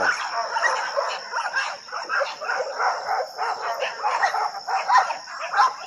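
Several kennel dogs barking at once in a fast, overlapping run of barks with no let-up. The pack is worked up and everybody is going crazy.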